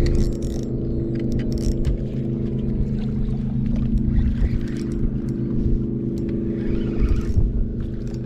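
Boat motor running steadily, a low hum of several steady tones, with scattered light clicks and taps over it.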